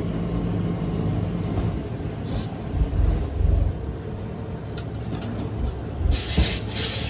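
A motor vehicle running nearby: a steady low hum that gives way to a deeper rumble in the middle, with a loud burst of hiss about six seconds in.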